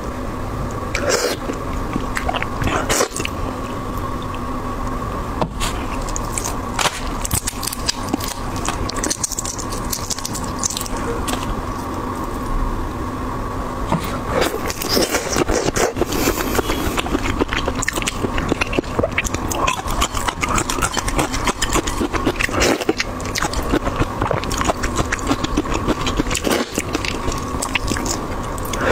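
Close-miked crackling and scraping of a large red prawn's shell being cracked and peeled apart by hand, with wet biting and sucking at the meat, a dense run of small clicks throughout. A faint steady hum runs underneath.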